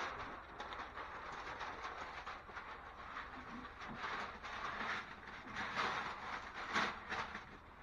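Masking paper and plastic sheeting rustling and crackling as they are handled and taped down, with irregular small clicks throughout.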